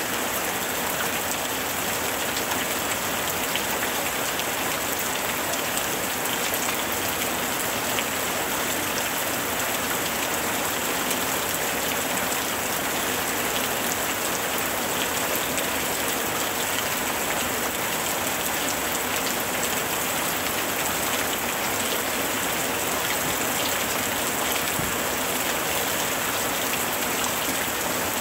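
Steady rain: an even hiss dotted with small drop ticks.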